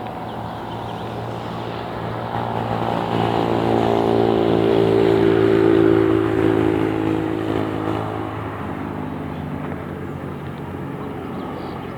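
A motor vehicle driving past on a road, its engine hum swelling to loudest about five seconds in and then fading away.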